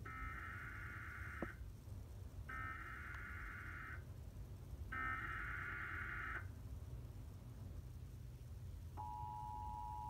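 Emergency Alert System header: three bursts of warbling digital data tones (the SAME header), each about a second and a half long and a second apart, announcing the start of an emergency alert. About a second before the end the steady two-tone attention signal begins.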